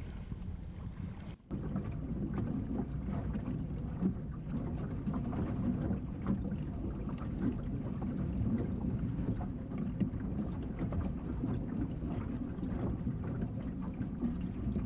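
Water rushing and slapping against the timber hull of a Heron sailing dinghy under way, heard muffled from inside a bucket in the boat. The sound breaks off for a moment about a second and a half in.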